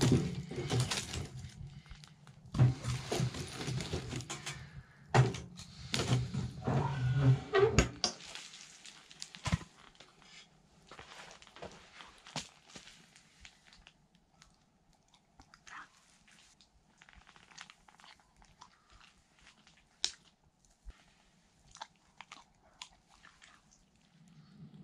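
Wood and metal knocking and clattering as a gloved hand arranges wood and coals in the firebox of a small wood stove. After about eight seconds it turns much quieter, leaving faint, scattered crackles of the fire burning.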